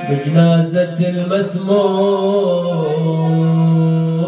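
A man chanting a Shia Husseini elegy in Arabic, solo into a microphone: he sings the word "bi-janāzat" ("at the funeral of"), then holds one long, steady note for about two seconds near the end.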